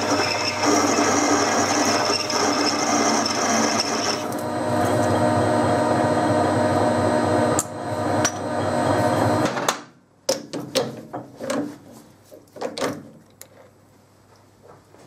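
Metal lathe running steadily with a hum of several steady tones, a higher hiss in it stopping about four seconds in, then spinning down about two thirds of the way through; a handful of sharp metal knocks and clicks follow as parts and tools are handled.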